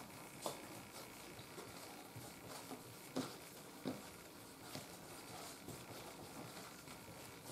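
Hands rounding a ball of soft bread dough on a wooden board: soft, irregular pats and knocks of dough and fingertips against the wood, with a few sharper taps about 3 and 4 seconds in.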